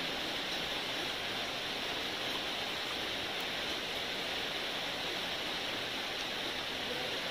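Steady, even hiss with no breaks or changes; no separate eating sounds stand out above it.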